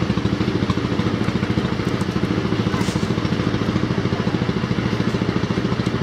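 Motorcycle engine idling steadily close by, a rapid even chugging.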